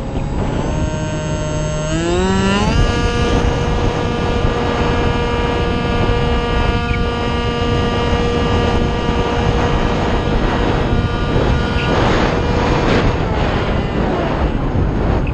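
Multiplex Shark RC plane's electric motor and propeller whining, heard from a camera mounted on the plane. The pitch climbs about two seconds in, holds steady, then fades near the end, with heavy wind rushing over the microphone.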